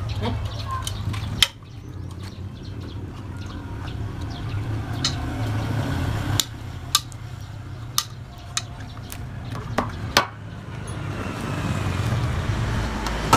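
A steady low rumble with about eight sharp knocks scattered through it. The loudest knock comes about a second and a half in, and the rumble drops right after it, then slowly builds back up toward the end.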